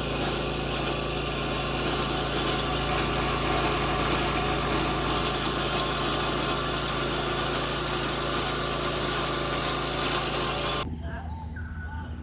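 Small petrol engine of a Lucas portable sawmill running at a steady speed while milling. It stops abruptly near the end, leaving a quieter background with short repeated calls.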